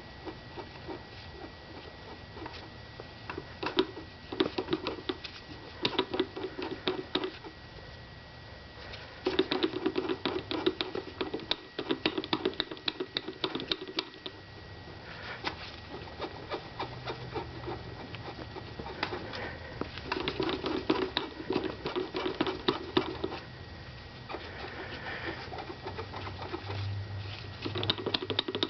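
Volkswagen Passat CV joint clicking rapidly in repeated bursts of a second or two with short gaps between, the clicking noise of a bad CV joint.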